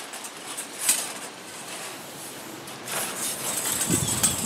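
Rag rubbing along a steel tape measure blade as the dirt is wiped off, with a few light clicks and rattles of the blade, most of them near the end.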